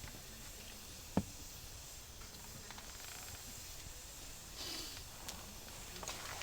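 Faint steady background hiss with one sharp click about a second in and a few softer ticks later.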